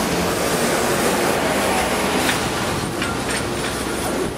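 Steady roar of jet aircraft engines with a thin high whine on top, and a few faint clicks partway through.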